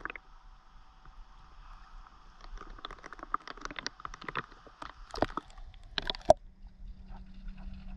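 Pool water lapping and sloshing around a camera held at the surface, with a run of small splashes and clicks about halfway through.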